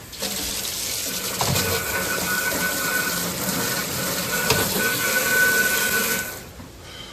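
Kitchen tap running water into a sink, a steady rush that stops abruptly about six seconds in as the tap is turned off.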